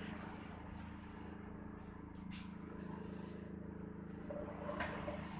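A steady low mechanical hum, even in pitch, like a motor running.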